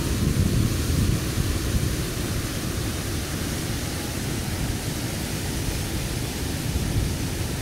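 Steady rushing roar of a mountain waterfall, with wind buffeting the microphone in low rumbles.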